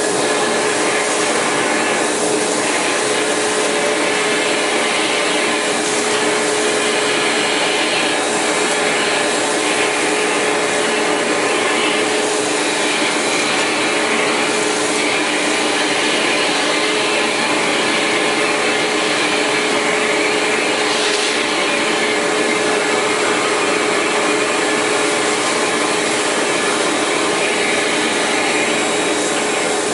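Cyclonic vacuum cleaner running steadily: a constant rush of air with an even motor tone underneath.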